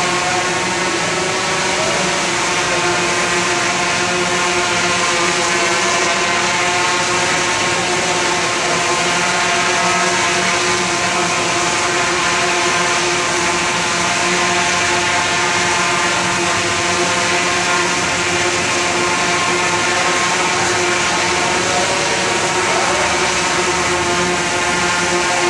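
Large camera-carrying multirotor drone hovering, its propellers giving a loud, steady hum with several pitches held level.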